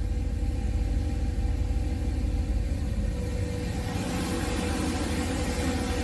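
Boosted 408 cubic-inch LS V8 with a stage 2 cam idling steadily at operating temperature, with a faint steady whine over the low engine note.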